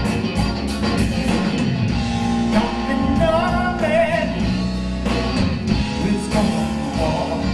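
Live blues-rock trio playing: electric guitar over bass guitar and a drum kit with cymbals, the lead line wavering and bending in pitch about three to four seconds in.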